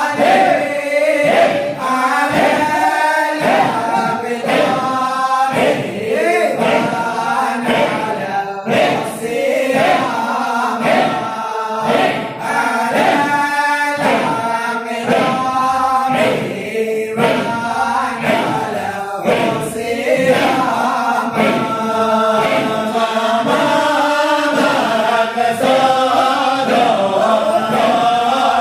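A group of voices chanting a Shadhili Sufi nasheed in Arabic, sung continuously in a steady melodic line.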